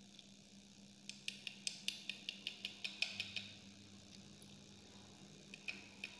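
A quick run of light, sharp clicks, about six a second, as acrylic paint supplies are handled, followed by a few single clicks near the end.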